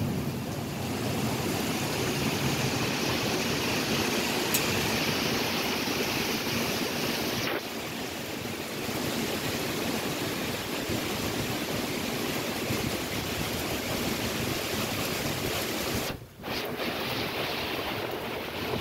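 Heavy rain and floodwater running through a flooded street: a steady rush of noise that briefly drops out near the end.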